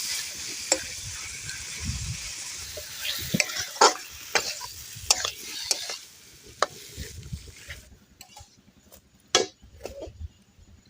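Goat intestine frying in a pan, sizzling, while a spatula stirs it with repeated sharp clinks and scrapes against the pan. The sizzle dies away about eight seconds in, leaving only a few clinks.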